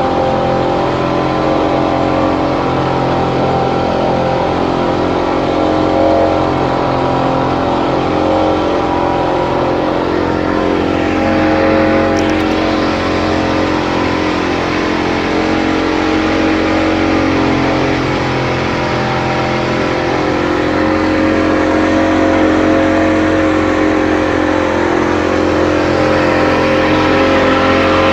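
Speedboat engine running steadily under way, a constant tone over a steady rushing hiss, swelling slightly near the end.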